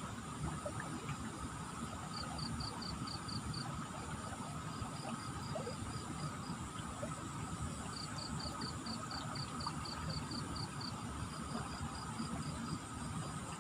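Steady rushing of high post-flood water, with insects chirping in quick runs of about four or five chirps a second and a thin steady high drone above.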